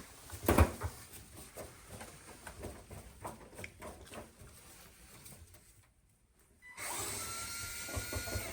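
Screw removal and panel handling on a water heater's control panel: a sharp knock, then light clicks and taps of a tool on metal and plastic. Near the end a steady hiss with a faint whine sets in.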